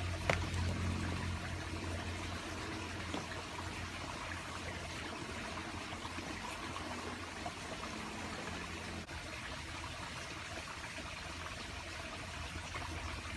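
A small creek trickling over rocks, a steady, even rush of water. A low steady hum sits underneath and stops about two-thirds of the way through.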